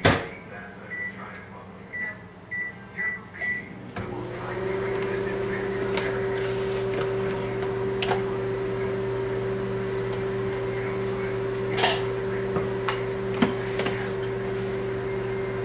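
Microwave oven: a click, then five short keypad beeps as its buttons are pressed, and about four seconds in it starts running with a steady hum. A few light clicks come near the end.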